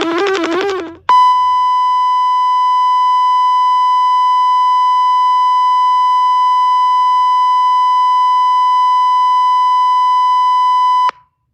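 Long, steady electronic beep: one unwavering high tone held for about ten seconds, then cut off abruptly near the end, the kind of tone that closes a mock Emergency Alert System broadcast. It starts about a second in, after the tail of a wavering synthesized tone.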